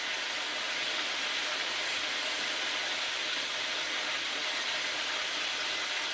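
Chicken wings deep-frying in hot oil in a frying pan: a steady, even sizzle.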